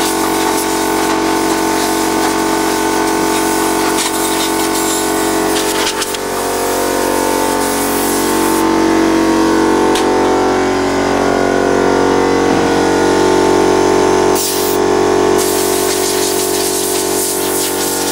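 Small portable air compressor running steadily while compressed air hisses from a blow gun on a coiled air hose, blowing out a metal toolbox; the hiss changes in brightness as the nozzle is moved and cuts out briefly about two-thirds of the way in.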